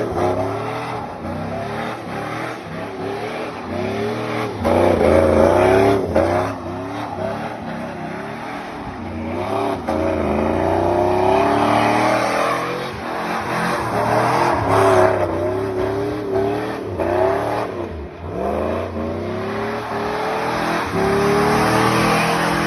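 A vehicle engine revving over and over, its pitch climbing and falling back many times.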